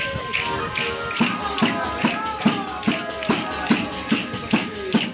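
Southern Italian folk dance music, in the tammurriata style: a frame drum with jingles beats a steady rhythm about two and a half strokes a second under a melody line.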